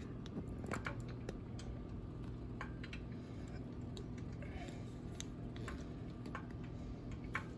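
Heated cooking oil in a pot, giving off scattered faint ticks and pops at irregular intervals over a steady low hum.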